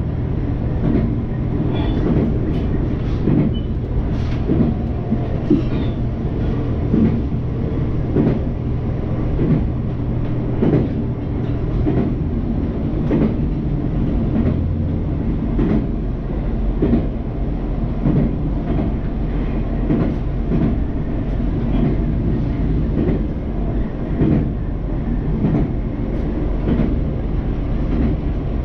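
JR Hokkaido H100 'DECMO' diesel-electric railcar running along the line, heard from inside the passenger area behind the cab. Its engine and traction drive make a steady low hum, and the wheels clack over rail joints roughly once a second. The engine note shifts lower about halfway through.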